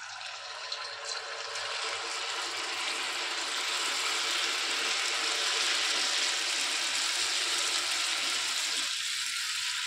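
Rice-flour and potato batter balls deep-frying in a kadai of hot oil: a steady, dense sizzle that builds a little over the first few seconds and thins slightly near the end.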